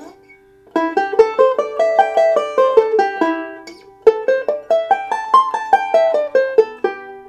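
Five-string banjo playing two fast major pentatonic scale runs up and down the neck, each climbing and then descending, with a short break between them. The notes are picked with a mix of single-string technique and forward rolls.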